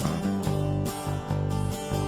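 Background music led by a guitar, with a steady strummed rhythm.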